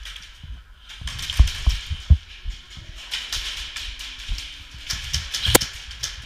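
A player's footsteps and gear knocking against a helmet-mounted camera while moving through an indoor arena, irregular thumps mixed with scattered clicks, and one sharp crack about five and a half seconds in.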